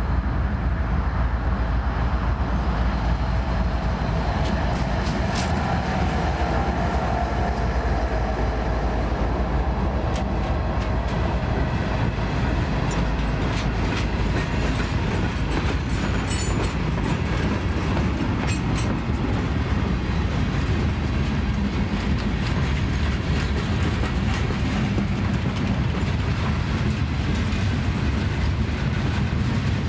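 CSX freight train passing close by as it slows: the lead GE Evolution-series (GEVO) diesel locomotive runs by in the first part, then gondolas and boxcars roll past with a steady rumble and clickety-clack of wheels over the rail joints, with scattered sharp wheel clicks midway.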